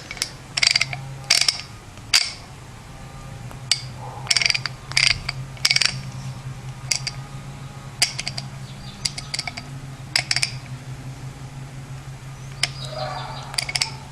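1952 Snap-on 71M half-inch-drive ratchet clicking in short groups of a few sharp clicks, about one group a second, as its handle is worked back and forth; a coarse 20-tooth mechanism, freshly greased. A steady low hum runs underneath.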